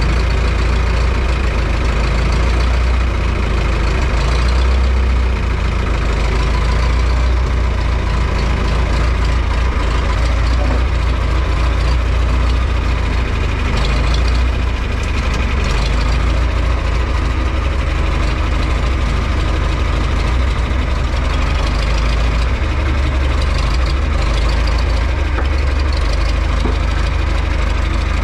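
Tractor engine running steadily with a deep, even rumble.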